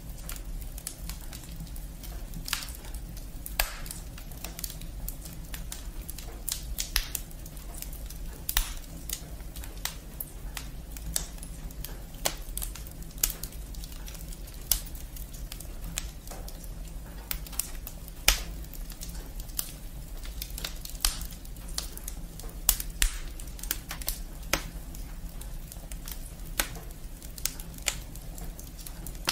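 Wood fire burning in a fireplace, crackling with irregular sharp pops of the firewood, a few of them louder, over a low steady rumble.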